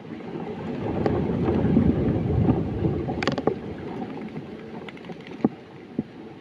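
Wind rumbling on the microphone, swelling over the first couple of seconds and then easing, with a few sharp clicks in the second half.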